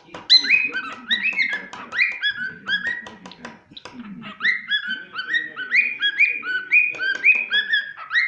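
A cockatiel whistling a chirpy song of short, repeated notes that slide in pitch. For about the first three and a half seconds it is mixed with quick sharp taps of its beak knocking.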